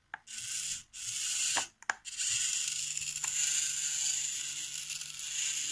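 Small hobby servo motors in a 3D-printed robot arm whirring and buzzing through their plastic gears as the arm moves, in two short spurts and then running steadily from about two seconds in.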